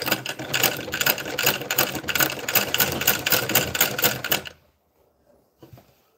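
Sewing machine running at speed, a rapid even clatter of stitching for about four and a half seconds that stops abruptly; a couple of faint clicks follow.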